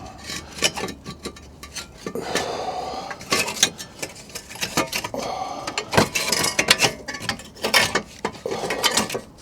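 Irregular metallic clinks and knocks from tools and exhaust parts being handled under a car.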